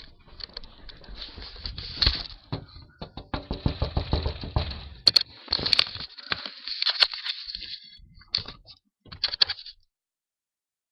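An irregular, fast run of sharp knocks and crackles that stops abruptly near the end.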